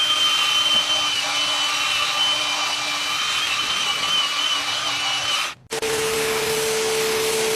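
Steady mechanical whirring with a thin high whine over it, cut off abruptly about five and a half seconds in and followed by a different machine's steady hum.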